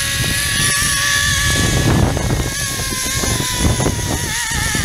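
Zipline trolley pulleys running along the steel cable: a steady whine that wavers and drops in pitch near the end as the ride slows. Heavy wind buffets the microphone throughout.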